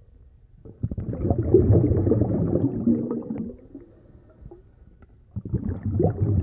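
A man imitating snoring: two long, low snores, the first starting about a second in and the second near the end.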